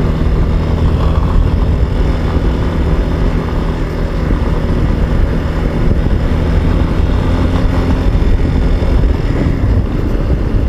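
Motorcycle cruising steadily at low town speed, its engine running at an even pitch under heavy wind rumble on the bike-mounted microphone, with tyres on a wet road.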